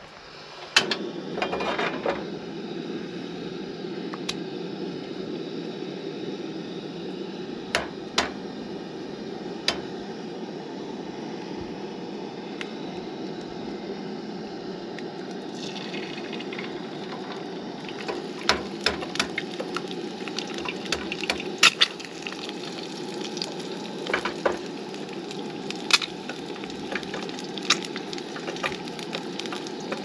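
Eggs frying in a nonstick pan on a gas camp stove: a steady sizzle with the burner's hiss, starting about half a second in and growing brighter about halfway through. Sharp clicks and taps of eggshells and utensils against the pan come now and then, in a cluster a little past the middle.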